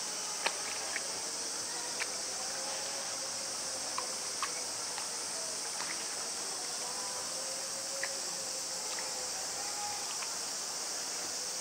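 Steady high-pitched drone of a summer cicada chorus, with scattered faint clicks and ticks.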